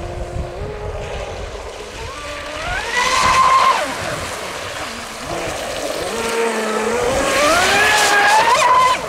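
HobbyKing Genesis RC speedboat running flat out on its 2000 kV XK 4074 brushless motor, a high whine that rises in pitch twice as the boat speeds up, the second climb cutting off sharply near the end.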